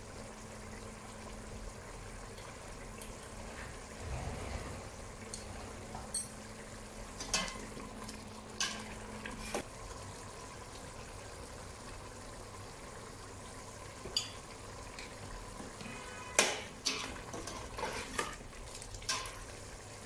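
Shrimp karahi simmering and sizzling in a stainless steel pot while a metal slotted spatula stirs it. The spatula clinks and knocks against the pot several times from about seven seconds in, loudest at about sixteen seconds.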